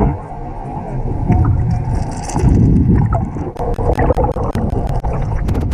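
Boat at sea: loud, uneven low rumble of water and wind buffeting the microphone. A run of sharp clicks comes in over the second half.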